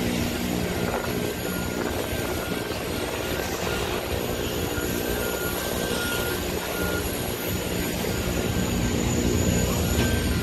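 Aircraft engine running steadily: a constant low hum with a thin high whine above it that wavers slightly in pitch.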